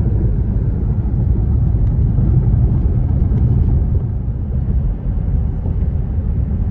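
A loud, steady low rumble with no clear tone.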